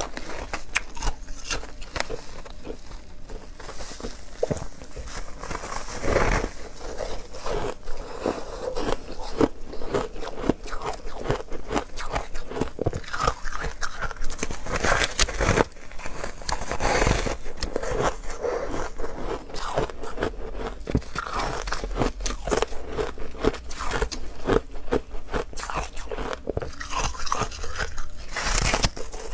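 Soft foam ice being bitten and chewed, a continuous run of crisp crunches and crackles.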